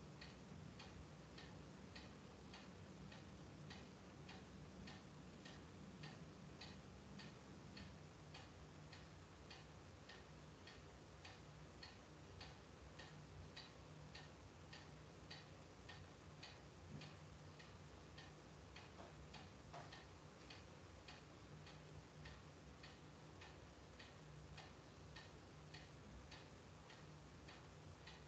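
Near silence with a faint, even ticking of a clock, about two ticks a second, over a low hum, picked up through an open microphone on a video call.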